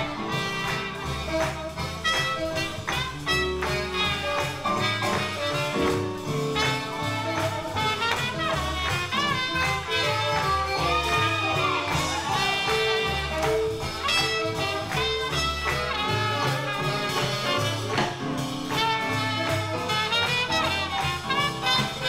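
Live swing band playing an up-tempo jazz tune, with saxophone and horn lines over a walking bass and drums.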